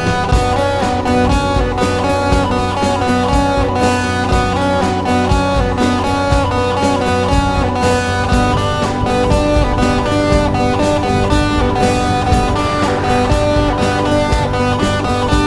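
Background music led by guitar, with many notes playing steadily throughout.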